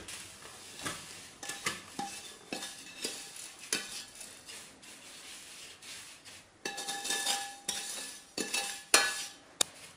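Wooden spatula scraping and knocking crisp toasted kadayıf (shredded pastry) out of a metal pot onto a metal baking tray: irregular scrapes, taps and dry rustling of the pastry strands. A brief metallic ringing comes through about seven seconds in.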